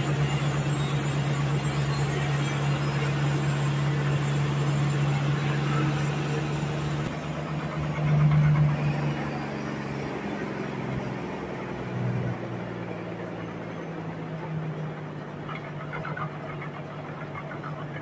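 Large band sawmill running with a steady low hum while its blade saws through a huge log. About seven seconds in the sound turns duller and somewhat quieter, with a brief louder swell soon after.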